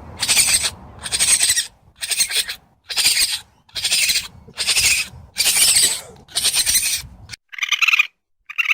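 Raccoon vocalising: a run of about eight raspy, noisy bursts, each about half a second long and coming a little under one a second. Near the end a different, higher-pitched chittering call comes twice.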